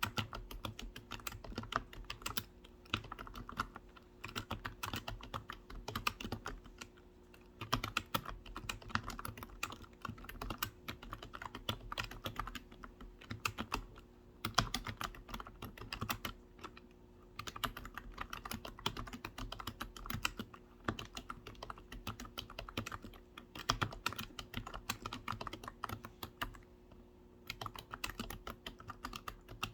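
Continuous typing on a computer keyboard: quick runs of keystroke clicks, with brief lulls about halfway through and near the end.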